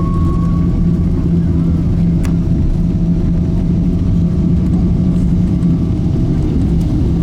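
Steady, loud cabin noise of a Boeing 777-300ER heard from an economy seat: the engines and airflow make a deep continuous rumble with a low steady hum. A faint click comes about two seconds in.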